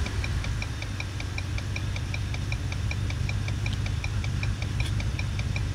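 Ford 7.3-litre 'Godzilla' gasoline V8 idling steadily after a rev. Over it comes a rapid, perfectly even, high-pitched ticking, about six ticks a second.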